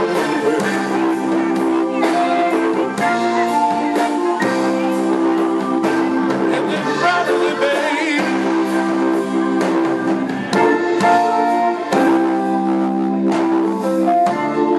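Live electric blues band playing, led by a Gibson Les Paul electric guitar, with a man singing.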